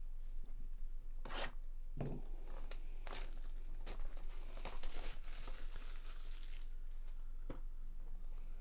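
Plastic shrink-wrap being torn and crinkled off a sealed trading-card hobby box: a string of sharp rips and crackles, thickest around the middle.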